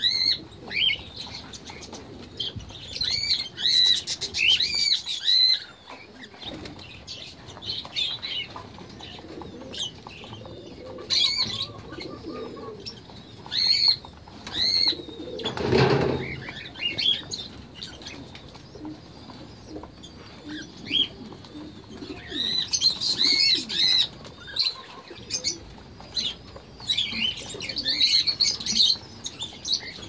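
A mixed aviary flock of budgerigars, cockatiels and doves chirping and calling in clusters of short high calls, with low cooing and wing flutters underneath. A brief loud rustle comes about halfway through.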